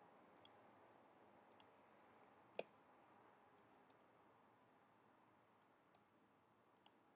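Scattered computer mouse clicks, several in quick pairs, over near-silent room hiss, with one louder knock about two and a half seconds in.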